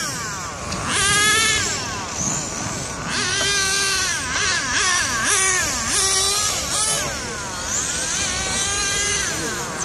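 1/8-scale RC racing cars' motors whining at high pitch, revving up and falling off again and again as they run the track, several rising and falling tones overlapping.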